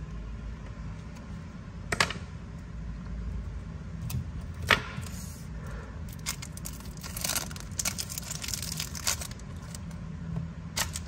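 Brass Zippo lighters being handled: two sharp metallic clicks, then a flurry of smaller clicks and clinks with a brief rustle, over a low steady hum.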